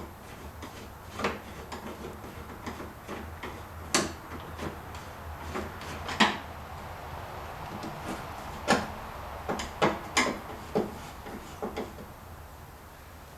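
Irregular clicks, knocks and light scrapes of a replacement Dodge Grand Caravan headlamp assembly being held in place while its mounting screws are started by hand, over a faint steady low hum.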